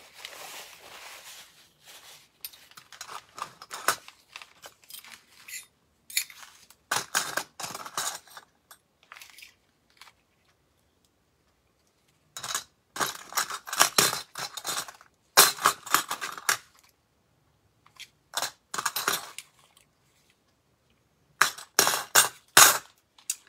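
Small metal cake-decorating piping tips clinking and rattling together as they are handled and sorted, in several separate bursts with short quiet gaps between them.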